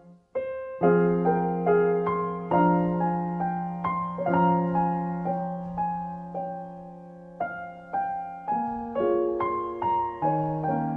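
Background piano music: slow, gentle notes and chords over sustained low bass notes. It drops out briefly about half a second in, then resumes.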